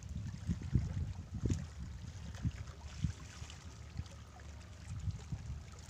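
Gusty wind rumbling on the microphone over small waves lapping and trickling among the boulders of a rock breakwater.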